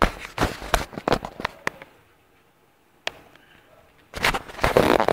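Crackling and scuffing from a Bichon Frise's fur and paws brushing against the microphone as it plays at the camera. The sound comes as irregular clicks and rustles: a cluster through the first couple of seconds, a single click, then a denser burst near the end.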